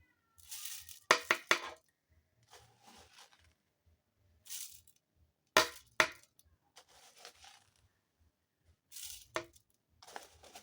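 Dry oats being poured into a blender jar, with bursts of rustling and several sharp clinks against the jar.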